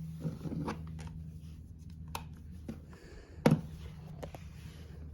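Handling noises: scattered clicks and knocks, the loudest about three and a half seconds in, over a low steady hum.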